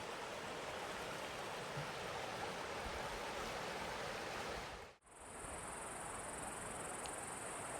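Steady rushing of a mountain creek. After a short break about five seconds in, a steady high-pitched insect buzz joins the water sound.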